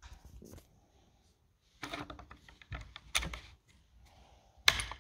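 Bolt of a Savage Rascal single-shot .22 LR rifle worked by hand: a series of small metal clicks and clacks as the bolt pushes the cartridge off the loading follower into the chamber and locks, with a sharper clack near the end.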